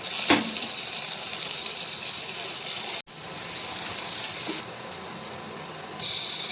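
Water running from a tap in a steady hiss, briefly broken by a cut and then resuming, with a knock just after the start.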